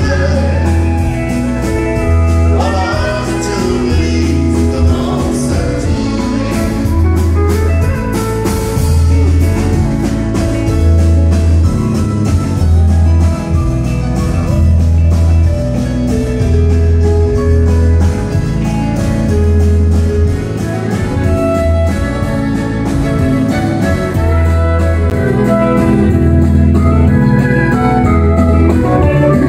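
Live country band music played through a PA: a woman singing with acoustic guitar, keyboard and fiddle over a steady pulsing bass line.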